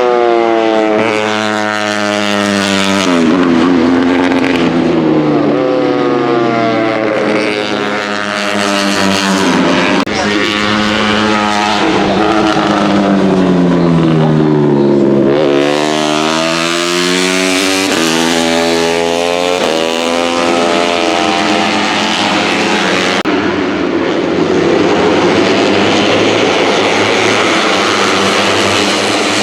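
Several KTM RC250RBR 250cc four-stroke single-cylinder race bikes running hard at high revs, passing close together. Their engine notes overlap, climbing as the riders shift up and dropping as they brake and downshift, with a long drop in pitch around the middle before they pull away again.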